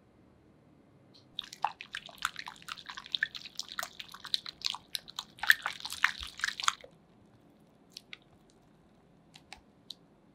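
Wet squishing and crackling clicks for about five seconds, then a few single clicks: a soft, wet food mixture being worked by hand or utensil.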